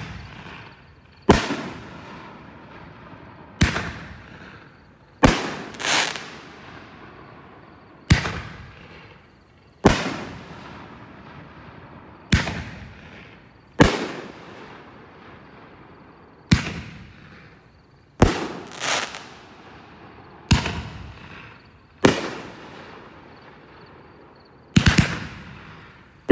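Legend Fireworks "Ring of Power" multi-shot aerial firework going off, a sharp bang about every two seconds with each one trailing away, and a faint hiss and crackle in between. Some bangs come in quick pairs, and several come close together near the end.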